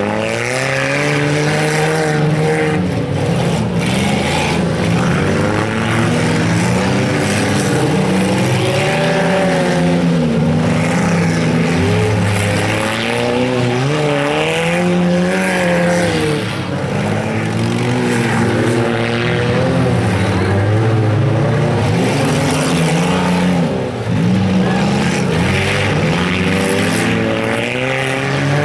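Several front-wheel-drive race cars' engines revving up and down over one another as they race a figure-eight course. The pitch rises and falls constantly, with no let-up.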